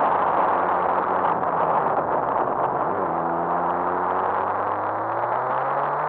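Motorcycle riding: a steady rush of wind noise on the bike-mounted microphone over the engine. About three seconds in the engine note shifts, then climbs steadily as the bike accelerates.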